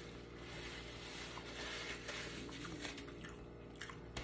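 Quiet room tone: a faint steady low hum with a few soft rustles, such as a paper napkin being handled.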